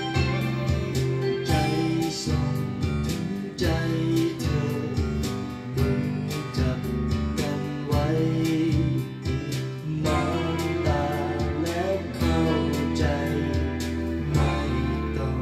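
Thai pop ballad playing back from a CD: full band with a steady drum beat, bass and guitar.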